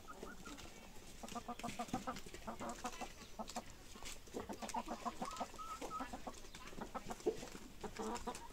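Domestic chickens clucking in a stream of short, overlapping calls, with scattered sharp clicks.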